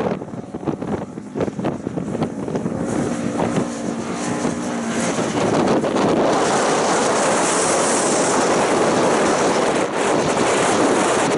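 Wind buffeting the microphone over the running engine of a side-by-side UTV. A faint engine tone comes through a few seconds in, and the wind noise grows louder about halfway through.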